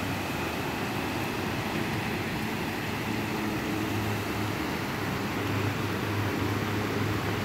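Steady rushing of flash-flood water pouring through a drainage channel, with a low steady hum underneath that grows stronger about halfway through.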